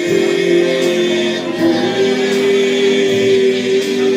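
Man singing a slow ballad into a microphone through PA speakers, with grand piano accompaniment. He holds one long note, then steps up to a higher held note about two seconds in and sustains it almost to the end.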